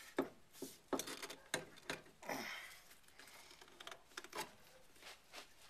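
Scattered light metal clicks and knocks, about eight of them, as a new rear strut's lower bracket is worked by hand onto a car's rear suspension knuckle.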